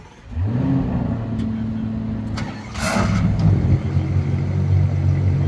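Ferrari Purosangue's V12 starting: a quick rising flare as it catches, then a steady fast idle. A short hiss comes about three seconds in, after which the idle is louder and deeper.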